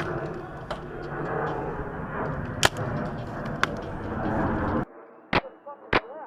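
Steady rustling noise with a few sharp cracks, then an abrupt change to quiet about five seconds in, followed by two shots from a Tacamo Blizzard magfed paintball marker, about half a second apart.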